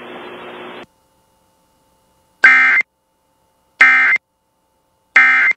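Emergency Alert System end-of-message signal: three short, loud bursts of screeching digital data tones, a little over a second apart, marking the end of the alert. Before them, a low hiss that cuts off about a second in.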